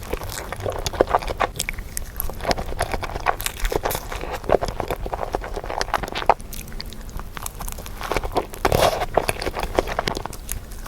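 Close-miked ASMR eating of a creamy crepe: steady chewing and biting with many short, wet mouth clicks and smacks.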